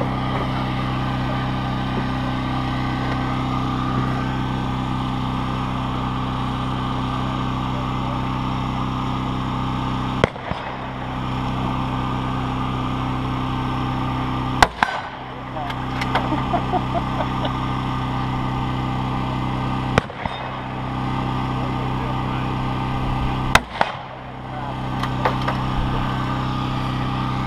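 Four precision rifle shots at steel targets, several seconds apart, each a sharp crack, over a steady low hum.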